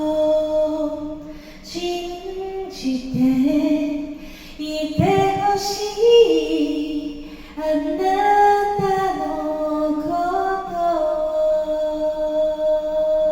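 A woman's voice singing a cappella with no instruments. She holds long, slow notes with harmony parts layered under the melody, and ends on one long held note.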